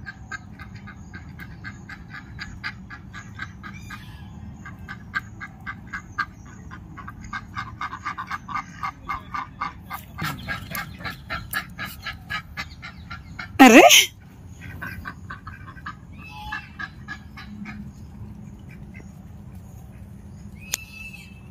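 White domestic ducks quacking in a rapid run of short calls, with one much louder call about two-thirds of the way through and fewer calls after it.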